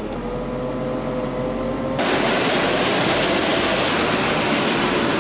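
Tractor engine running with a steady hum that rises slightly in pitch. About two seconds in, a loud, even mechanical rushing noise starts suddenly and carries on: the PTO-driven grain auger running.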